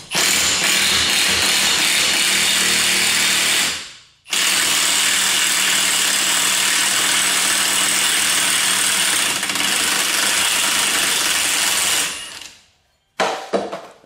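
Milwaukee Fuel cordless impact wrench hammering on the front axle nut with a 33 mm socket, breaking it loose and spinning it off the axle shaft, in two long runs about four and eight seconds long with a brief stop between. A few sharp knocks follow near the end.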